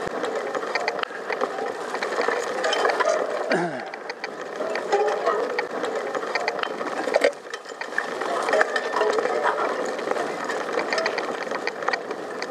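Bicycle rear freewheel ticking steadily as the bike rolls along without pedalling, over a rustling background of the bike moving through long grass.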